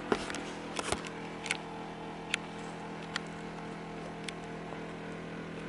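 A quiet room with a steady low hum and a few short, sharp clicks, the loudest near the start.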